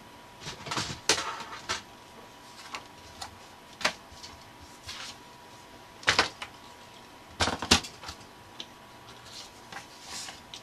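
Paper and craft tools being handled on a work table: scattered sharp clicks and taps, one close pair of clicks about two-thirds of the way through, as cardstock is set on a paper trimmer and scoring board.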